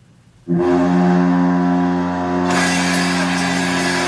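Anaheim Ducks arena goal horn sounding one long, steady blast, starting about half a second in. Crowd cheering joins about halfway through.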